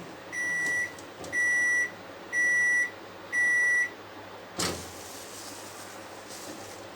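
Panasonic microwave oven sounding its end-of-cooking signal: four high beeps, about one a second, each about half a second long, as the timer runs out. A single sharp click follows a little later.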